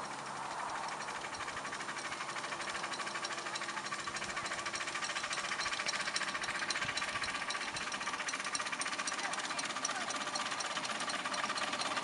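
Small miniature-railway steam locomotive working along the track, its exhaust beating in a fast, even rhythm. The beats grow gradually louder as it approaches.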